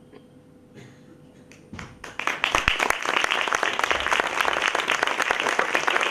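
Theatre audience applauding: a few scattered claps, then about two seconds in the whole house joins in with dense, steady applause.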